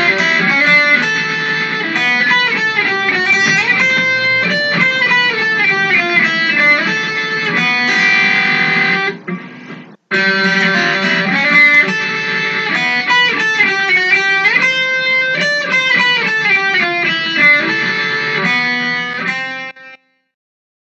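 Intro music led by an electric guitar playing a melodic phrase. The phrase breaks off briefly about halfway through, repeats, and stops about a second before the end.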